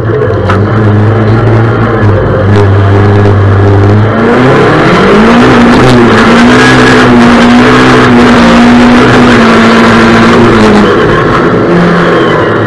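Rallycross car's engine heard from onboard under hard acceleration, very loud: the pitch climbs about four and a half seconds in, holds high and steady, then drops back about eleven seconds in.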